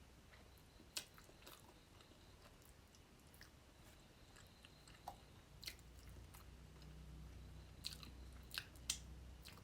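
Quiet close-miked chewing of fish curry, with wet mouth clicks scattered through it and a cluster of sharper clicks near the end.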